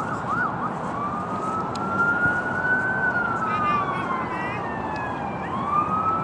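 Emergency-vehicle siren switching from a fast yelp to a slow wail. The pitch climbs for about two seconds and falls for about two and a half, then starts climbing again near the end.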